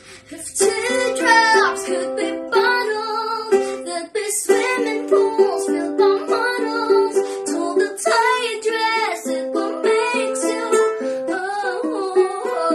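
A young girl singing to her own strummed ukulele accompaniment; her voice comes in about half a second in over the ukulele chords.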